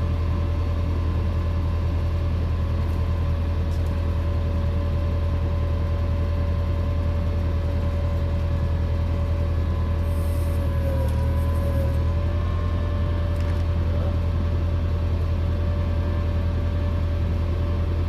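Steady machine hum: a strong low drone with a fainter whine above it, the whine dipping briefly in pitch about eleven seconds in.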